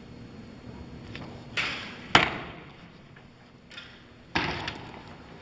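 A Japanese bamboo longbow (yumi) shot from full draw: the string snaps forward on release, and about half a second later comes a sharp, loud crack of the arrow striking the target. A further short burst of noise follows near the end.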